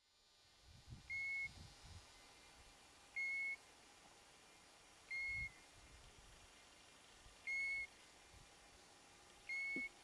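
European golden plover calling: a short whistle held on one pitch, given five times at about two-second intervals.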